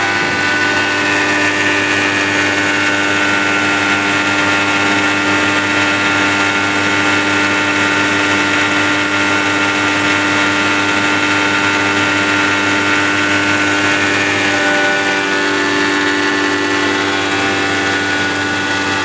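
Grain grinder running steadily under load: a loud, even mechanical drone with several steady whining tones over a rushing hiss.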